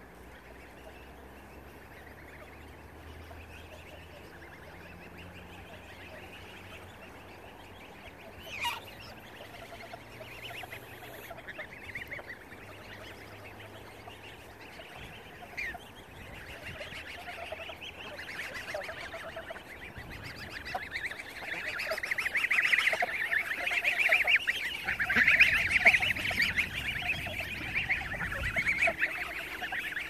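A flock of geese honking. Scattered calls become a dense, loud chorus in the second half.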